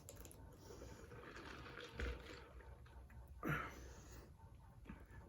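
Quiet room with a soft thump about two seconds in and one short breathy mouth sound from the eater about three and a half seconds in.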